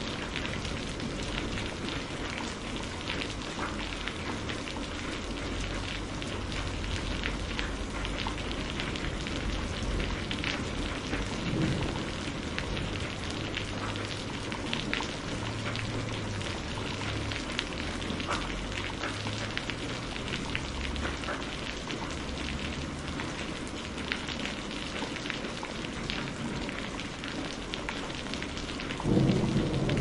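Steady heavy rain, with dense drops pattering and an intermittent low rumble of distant thunder. About a second before the end, a louder roll of thunder begins.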